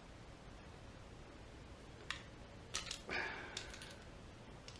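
Small metal hand tool clicking and briefly scraping against carburetor parts while the main jet is being taken out: a few faint, separate ticks and one short scrape.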